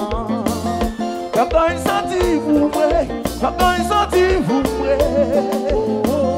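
Live band music: a man singing into a microphone over electric bass, keyboard and drums, with a steady dance beat.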